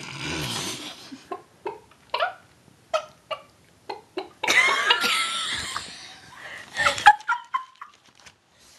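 A person imitating a chicken with a string of short, separate vocal clucks. The clucks are broken about halfway through by a stretch of laughter, then start again near the end.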